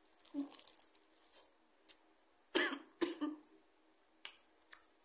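Mouth noises of a person eating a burger: a bite, then chewing with a few sharp wet smacking clicks spread out, the loudest about two and a half seconds in.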